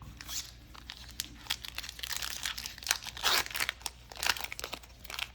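Foil wrapper of a Pokémon card booster pack crinkling as it is torn open and handled, an irregular run of crackles with louder bursts about three and four seconds in.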